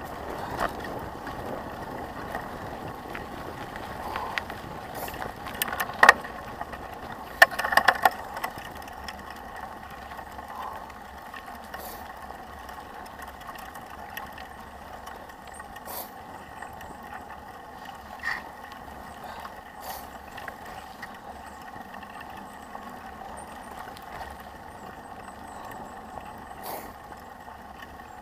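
Trek 4900 mountain bike rolling over a gravel and dirt road: steady tyre and rolling noise, with rattles and sharp knocks from the bike over bumps, a loud cluster about six to eight seconds in.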